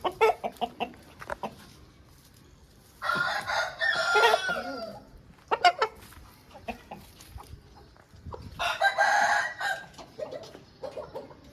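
Aseel roosters crowing twice, a long crow about three seconds in and a shorter one near nine seconds. Short clucks come at the start and between the crows.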